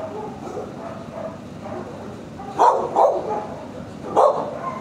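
Dogs barking in a shelter kennel: two loud barks about two and a half seconds in and another near the end, with fainter barking from other kennels between them.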